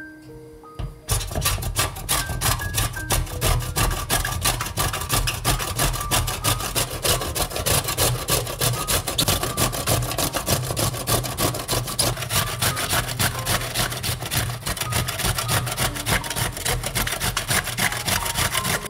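Red bell pepper being grated on a stainless steel box grater over a wooden cutting board: quick rasping strokes, about three to four a second, starting about a second in and keeping up steadily.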